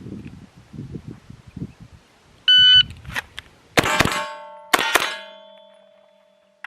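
A shot timer beeps once, then two loud gunshots about a second apart, each hit followed by the ringing of a struck steel target; the second ring carries on for nearly two seconds.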